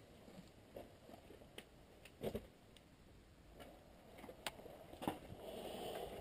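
Faint footsteps on a debris-littered floor: scattered crunches and knocks, with a soft scuffing near the end.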